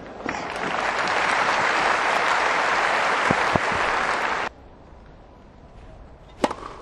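Tennis crowd applauding a point. The applause builds in quickly and stays steady, then cuts off abruptly about four and a half seconds in. A single sharp knock follows near the end.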